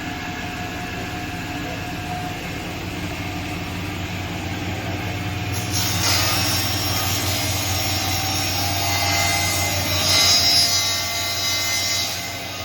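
BOSS MBS 300 table saw with a 5 hp motor running freely. About six seconds in, the blade cuts into a board and the sound grows louder and higher. The cut ends shortly before the close and the saw runs on freely.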